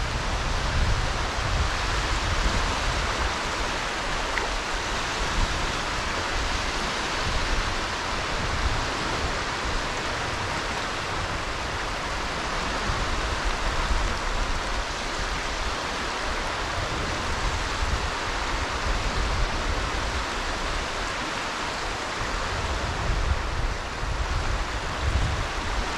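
Wind rumbling and buffeting against the microphone over a steady rushing hiss of wind and small waves washing onto the shore.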